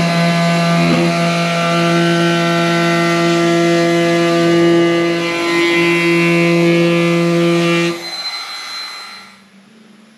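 Wood router fitted with a bowl-and-tray bit, running steadily while cutting the hollow of a wooden ashtray on a second pass: a steady whine with rough cutting noise over it. It is switched off about eight seconds in and winds down over a second or so.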